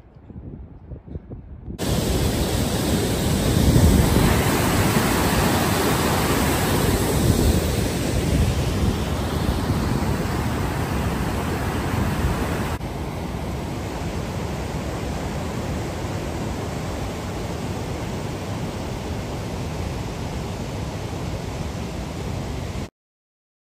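Wind blowing hard across the microphone, a loud rushing noise that starts suddenly about two seconds in and swells in gusts, then drops to a slightly quieter, duller rush halfway through; it cuts off just before the end.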